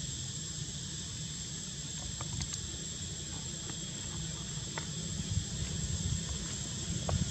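Steady high-pitched drone of insects in the forest, over a low rumble, with a few faint ticks.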